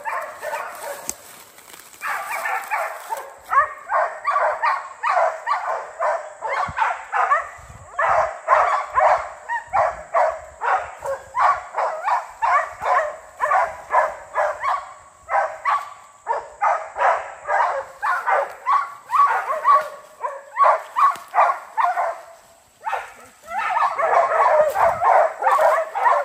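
Hunting dogs barking steadily and rapidly at a bear they have treed, the sustained bay that marks game held up a tree. The barking pauses briefly near the end, then resumes.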